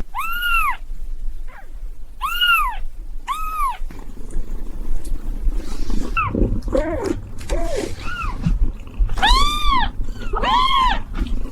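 Kittens meowing again and again: high, thin cries that rise and fall in pitch, about half a second each, with a few lower meows in the middle and two cries overlapping near the end. A low rumble sits under the calls from about four seconds in.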